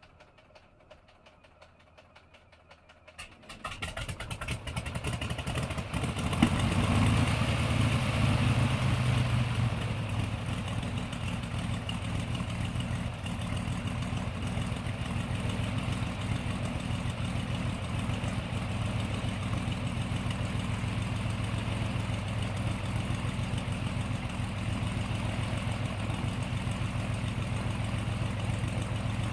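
Propeller plane's engine starting: faint ticking for about three seconds, then the engine catches and runs louder for several seconds before settling into a steady idle.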